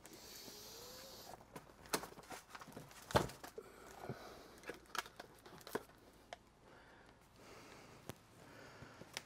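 A papery rustle in the first second, then scattered clicks and knocks of objects being handled; the loudest knock comes about three seconds in.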